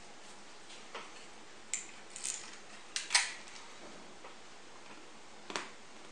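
A few separate, fairly faint clicks and short scrapes of a snap-off utility knife and a cardboard box, as the knife is set to the box's seal. The loudest click comes about three seconds in and another near the end.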